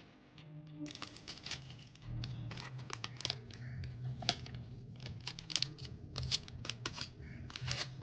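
Paper or packaging being handled: a run of irregular crinkling and crackling clicks, with a low steady hum under it from about two seconds in.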